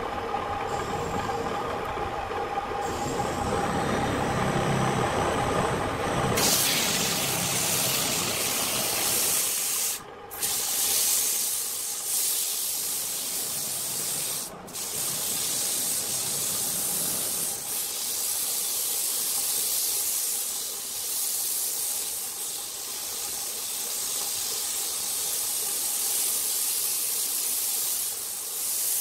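Electric wood lathe running with a steady hum. About six seconds in, abrasive is pressed against the spinning wooden vase, a loud, even sanding hiss, broken twice by short gaps when the hand lifts off.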